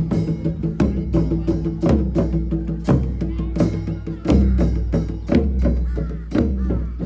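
Music with percussion struck in a steady rhythm over a low sustained bass.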